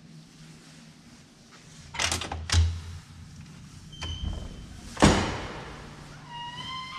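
A heavy door in a corridor is opened and swings shut. There is a clatter of the latch and a thud about two seconds in, then a loud bang with a ringing echo about five seconds in. A held, gliding musical tone comes in near the end.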